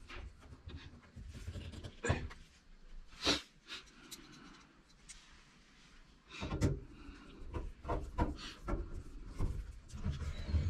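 Washing machine's rear cover panel being handled and fitted back into place: scattered knocks and clicks with rubbing and scraping between them.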